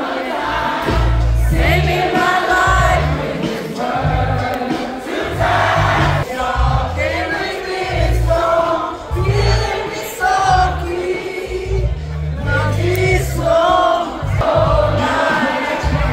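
Loud party music with a heavy bass line and singing voices, over the noise of a crowd.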